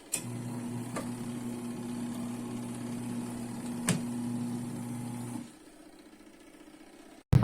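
Electric motor of a ZENY portable mini washing machine switching on with a click and humming steadily for about five seconds, with two light clicks along the way, then cutting off.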